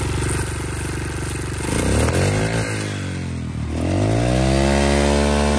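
Dirt bike engine running in gear with its rear wheel spinning free off the ground, revved up twice: the pitch climbs and falls about two seconds in, then climbs again and holds high before dropping near the end.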